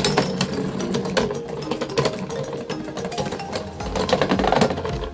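Four Beyblade Burst spinning tops whirring and clashing on the plastic stadium floor: a fast, uneven clatter of sharp clicks as they knock together, with music underneath.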